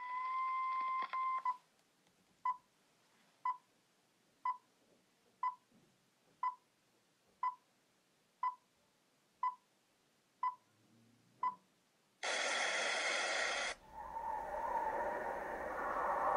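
Film countdown leader beep effect: a steady beep of about a second and a half, then ten short beeps exactly one second apart. About twelve seconds in comes a short burst of noise, then a louder swelling sound with a low hum that builds toward the end.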